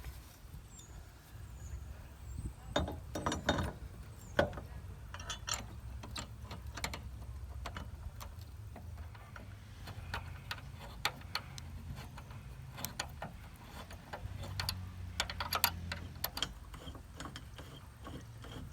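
Hand tools working the Jeep Wrangler's door-hinge bolts: irregular sharp metal clicks and clinks, bunched more densely about three seconds in and again about fifteen seconds in.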